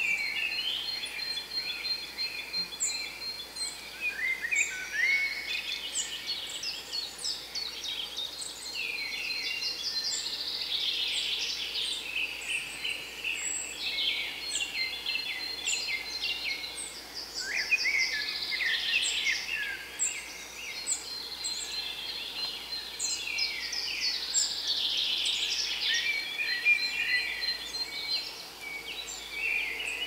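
Forest songbird chorus: many birds singing at once, their songs and calls overlapping continuously. A fast, high trill on one pitch comes in a few times among them.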